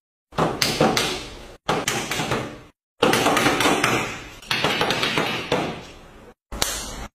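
A series of about five sudden hits or knocks, each dying away over a second or so, broken by short abrupt silences.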